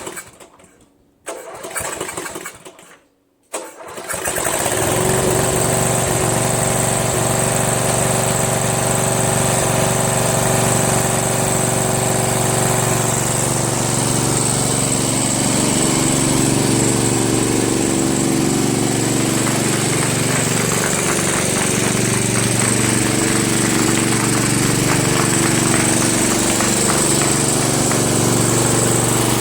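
Murray Select lawn tractor engine cranked in two short bursts, then catching about four seconds in and running steadily. With the seat safety switch wired for its reverse (normally closed) action, the engine now starts and keeps running.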